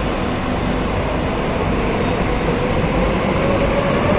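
Madrid Metro train at the platform starting to pull away: a steady rumble with a motor whine that slowly rises in pitch from about halfway through as it gathers speed.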